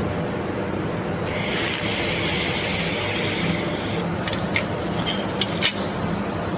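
Handheld fiber laser welding machine working on thin stainless steel. A steady machine hum runs underneath, a hiss starts about a second in and lasts about two seconds, and a few sharp ticks follow near the end.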